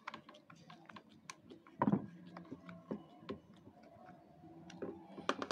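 Small clicks and scrapes of a screwdriver turning a screw into a hair clipper's metal blade mount, with one louder bump about two seconds in.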